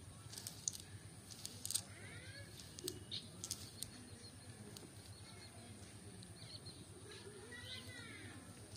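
Faint outdoor ambience with a small bird chirping twice, a quick run of arched chirps about two seconds in and again near the end. Scattered sharp clicks and rustles in the first few seconds.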